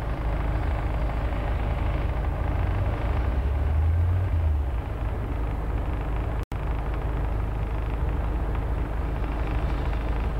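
Truck engine and road noise heard from inside the cab while driving in city traffic: a steady low rumble, with the engine drone swelling for a second or two about four seconds in. The sound cuts out for an instant a little past the middle.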